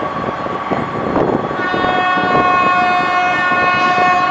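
A 2TE25K diesel freight locomotive sounding its horn as it approaches: a steady high note that becomes a full, loud multi-note chord about a second and a half in, held over the locomotive's running rumble.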